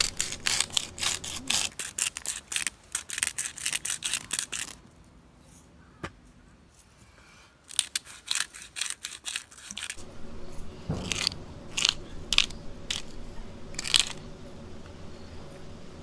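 Black peppercorn grinder with a plastic grinding cap being twisted by hand over a steak, cracking peppercorns in rapid dry clicks. There are two spells of grinding, the first about four seconds long and the second about two, with a short pause between, and a few single clicks near the end.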